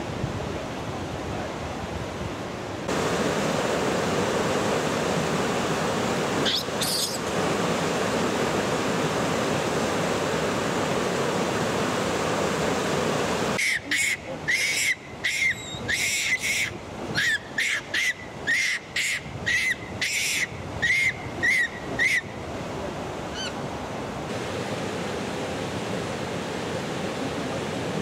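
Steady outdoor rushing noise that changes level at each cut, with a run of about sixteen short, high, repeated calls, roughly two a second, lasting some eight seconds in the middle.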